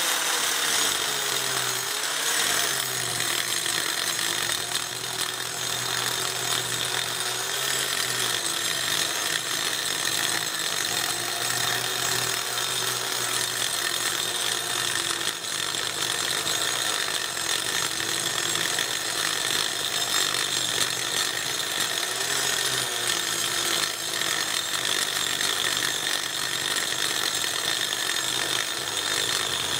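Electric angle grinder with a toothed wood-carving disc running continuously and grinding into a walnut block. The motor's pitch dips and recovers several times as the disc is pressed into the wood. Some of the disc's teeth are knocked off, so it grinds rather than digging in fast.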